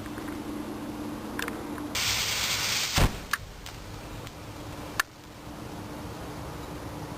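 Loose black powder flashing off: a sudden loud hiss about two seconds in that lasts about a second and ends in a sharp knock, followed by a few scattered clicks.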